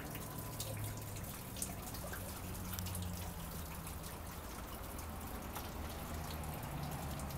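Faint dripping and trickling of rainwater off a wet surface, small ticks scattered through, over a steady low hum.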